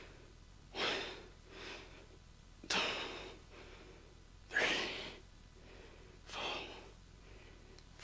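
A man breathing hard in short, forceful exhales, one every second or two in time with his reps of kettlebell shoulder shrugs; the strongest come about three and four and a half seconds in.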